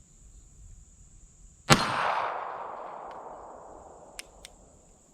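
A single shot from a Smith & Wesson M&P Bodyguard .380 pistol, followed by a long echo dying away over about two seconds. Two faint clicks come near the end.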